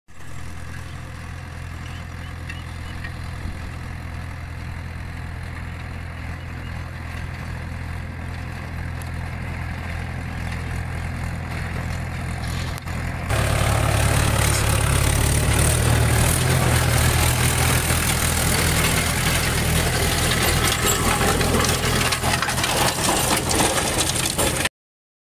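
Mahindra 585 tractor's diesel engine running steadily under load while driving a rotavator through dry soil. About halfway through it turns abruptly louder, with more of the rotavator's churning and grinding noise. It cuts off suddenly near the end.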